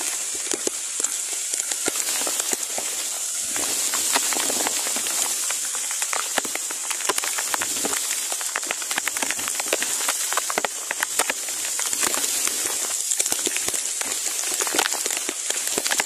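Heavy rain falling on leaves and a grass nest: a steady hiss thick with countless sharp drop hits.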